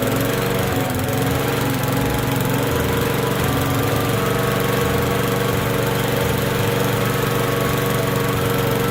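Small gasoline engine on a piece of lawn equipment running steadily after being started.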